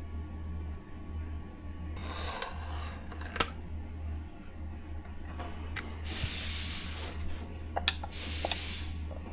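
Tool scraping and rubbing at the rubber seal of an engine control module's housing, in three rough stretches with a couple of sharp clicks, over a steady low hum.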